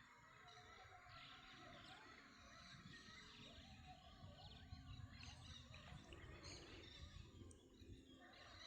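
Near silence: faint outdoor ambience with scattered small bird chirps over a low rumble.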